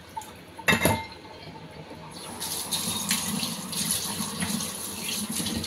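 A sharp clatter about a second in, then a kitchen tap running from about two seconds in as soaked soup ingredients are rinsed under it.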